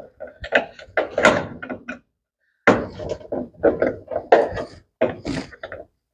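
Repeated knocks and clatter of hand tools (pliers and a wrench) against the parts of a Brastemp BWK14 washing machine while a stubborn retaining clip is worked loose. There is a brief pause about two seconds in.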